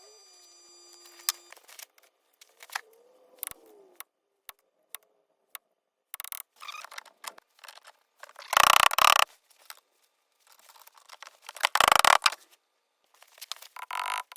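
Metalworking in a small workshop: scattered sharp clicks and light scrapes, broken by three short, loud, noisy bursts about three seconds apart.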